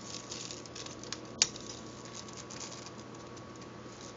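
Quiet handling of a bunch of asparagus and a chef's knife on a plastic cutting board: faint rustling over steady hiss, with one short sharp click about a second and a half in.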